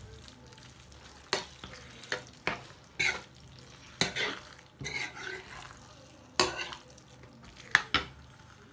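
Metal spoon stirring thick chicken-and-vegetable pie filling in a non-stick frying pan, scraping and knocking against the pan in irregular strokes about once a second, over a faint sizzle from the hot pan. The thickener is being stirred into the filling.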